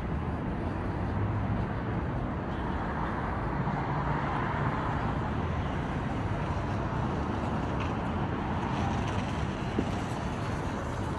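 City street traffic: a steady noise of cars and buses going by, with a vehicle passing louder about four seconds in.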